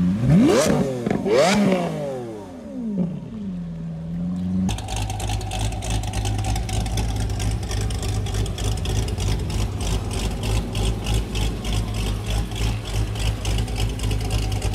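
Lamborghini Aventador's V12 blipped twice in quick revs, each rising and falling, then dropping back to a steady idle. About five seconds in, a C6 Corvette Z06's V8 takes over, idling with an even, pulsing rhythm through its quad-tip exhaust.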